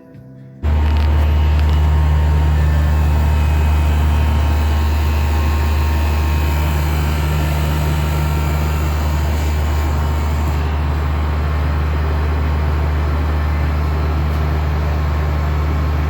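Window-type air conditioner running: a loud, steady low hum that starts abruptly about half a second in and holds without change.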